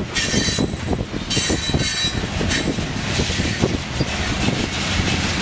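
Freight train's covered hopper cars rolling past at close range: steady wheel-on-rail rumble with irregular clacks from the wheels. A high hiss comes and goes twice in the first two seconds.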